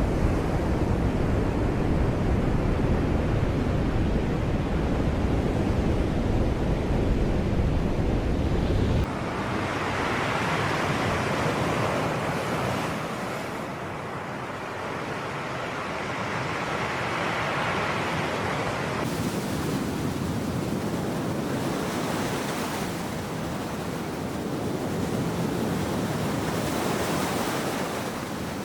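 Sea waves washing in and out as a steady surf wash that swells and fades. For about the first third, a deep rumble of wind on the microphone lies under it and then stops abruptly.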